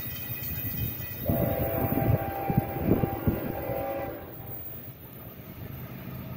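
Diesel locomotive horn sounding one long blast of nearly three seconds, starting about a second in, over the steady low rumble of freight cars rolling past.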